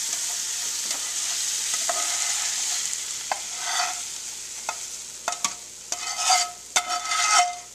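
Chicken and onions sizzling in a saute pan, the sizzle dying away over the first few seconds, then a plastic spatula scraping the mixture out of the pan into a bowl of pasta, with short scrapes and knocks that grow loudest near the end.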